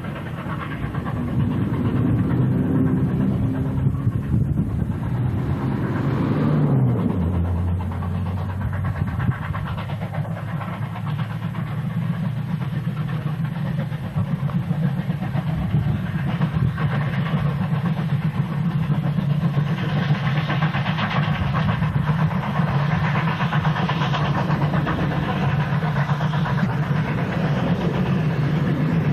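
Two steam locomotives, 2-8-0 K153 and a 2-6-0 D3, working hard as they double-head a train up a grade: steady exhaust and running noise. Early on a low droning tone drops in pitch about seven seconds in, then the locomotives' steady working sound takes over.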